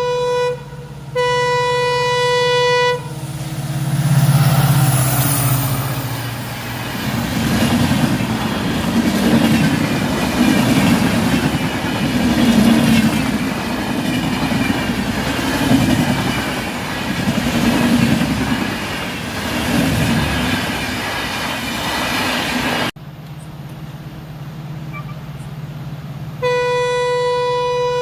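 Train horn sounding two steady blasts. A train then passes with loud rumbling and clattering that swells and fades in a slow rhythm for about twenty seconds. This cuts off suddenly, and the horn sounds again near the end.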